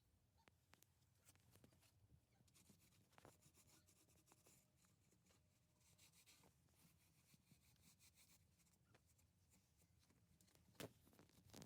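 Near silence, with faint scattered clicks and light rubbing, and a couple of sharper clicks near the end.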